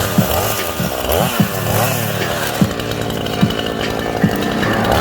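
Two-stroke chainsaw running and being revved, its pitch rising and falling repeatedly.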